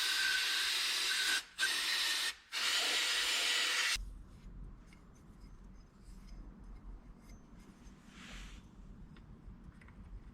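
Pressurized spray hissing in three bursts, each a second or so long with short breaks between, stopping about four seconds in. After that there are only faint small clicks and one short hiss.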